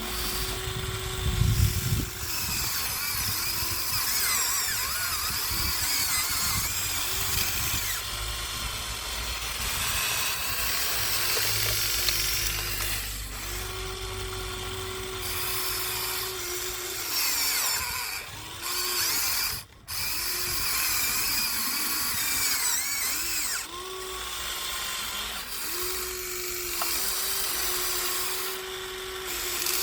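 Huina 1593 RC excavator's small electric motors and gearboxes whining as it digs and slews, the pitch stepping up and down as different functions start and stop. A low thump comes about a second and a half in.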